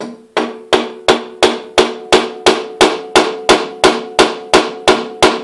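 A wooden mallet tapping an arbour driver wedged in a drill press quill's slot, about three blows a second, sixteen in all, to knock the Morse taper arbour out of the quill. Each blow is sharp, over a steady metallic ring that carries on between the blows.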